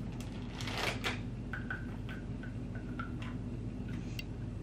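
Soft breath blown into a plastic breath-collection bag, followed by small clicks and crinkles of the plastic bag and sample tube being handled, over a low steady hum.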